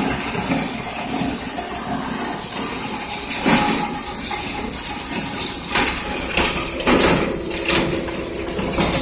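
Electric bone crusher running, a steady motor hum under a continuous grinding clatter, with irregular sharp cracks as bone is broken into small pieces, more frequent in the second half.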